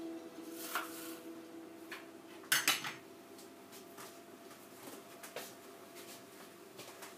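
Plates and cutlery clinking on a kitchen counter, with a louder clatter of a few quick knocks about two and a half seconds in, then scattered light clicks.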